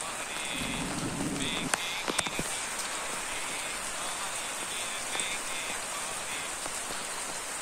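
Steady rain falling, with a few sharp taps about two seconds in.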